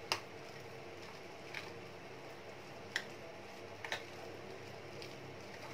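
A spoon stirring a thick mashed black-chickpea paste in a glass bowl: faint squishing, with a few light ticks of the spoon against the glass.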